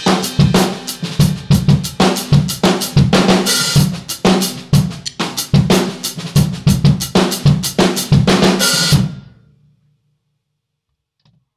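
Live rock band playing: a drum kit pounds out rapid hits with crashing cymbals over bass and electric guitar. The whole band stops abruptly about nine seconds in.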